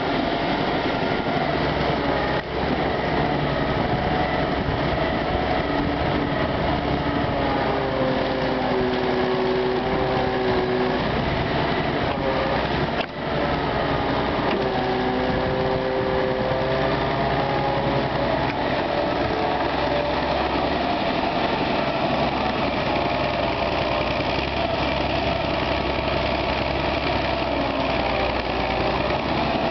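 Soviet EO-4121 hydraulic crawler excavator working, its diesel engine running steadily under digging load. Twice, around eight and fourteen seconds in, the machine's whine drops in pitch and then recovers.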